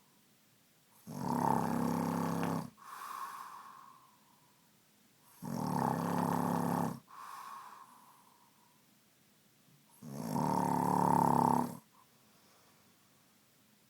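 A man snoring in his sleep: three loud snores about four and a half seconds apart, each followed by a softer breath that fades out.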